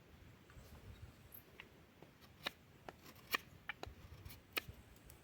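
Knife blade cutting into wood, giving a string of sharp, irregular clicks and snaps, about eight over five seconds.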